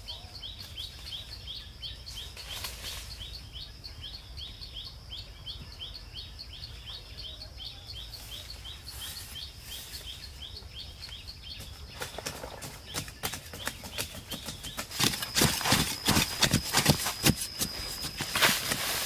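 A high chirping call repeats about three times a second, then stops about eleven seconds in. After that comes the scraping and knocking of hand-digging in dry soil with a blade, louder and busier near the end.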